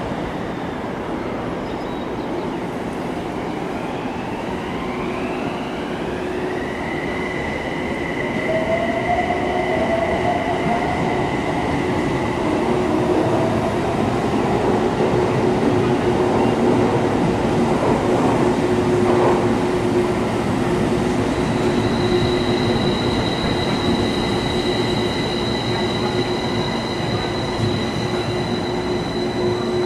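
Odakyu electric train running along the platform: the motor whine rises in pitch early on, then holds steady as the train sound grows louder. A high steady squeal, typical of wheels on a curve, comes in for the last third.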